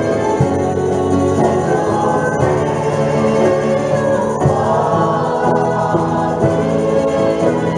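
Mixed church choir singing a worship song together, with instrumental accompaniment under the voices.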